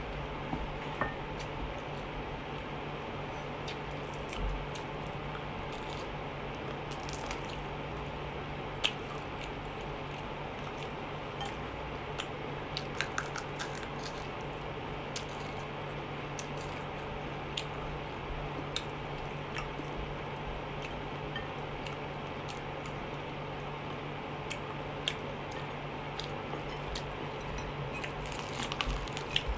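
A person eating fried chicken with her hands, close up: chewing, lip smacks and wet squishing mouth noises heard as scattered short clicks, thickest near the end, over a steady low hum.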